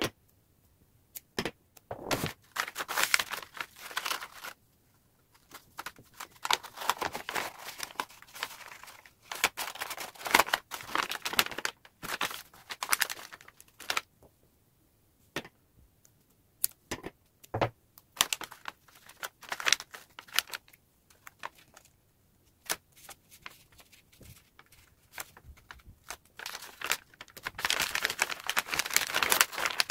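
Brown kraft wrapping paper rustling and crinkling as it is handled and folded, with the peel and tear of double-sided tape and small sharp clicks. The sounds come in irregular bursts with short pauses between them.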